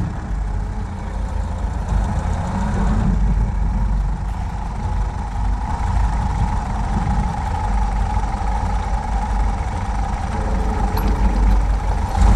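1931 Ford Model A's four-cylinder flathead engine running steadily as the car is driven, a low rumble.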